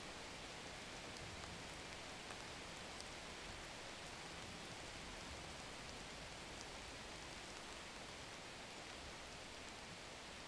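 Steady, even hiss like falling rain, with faint scattered ticks.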